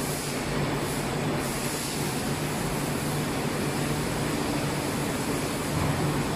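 Steady factory machinery noise: an even rumble and hiss with a low hum underneath, with no distinct bursts standing out.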